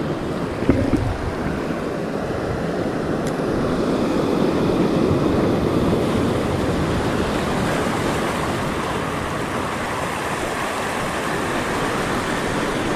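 Sea surf breaking and washing over a rocky reef shelf, a steady rush of water, with wind buffeting the microphone. A short knock sounds near the start.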